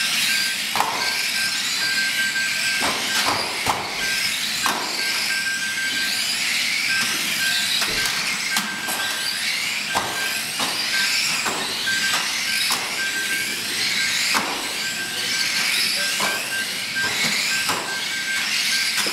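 A pack of 1/12th-scale electric radio-controlled stock cars racing together, their motors and gears making a dense high whine, with frequent sharp knocks and a thin steady tone that keeps breaking off.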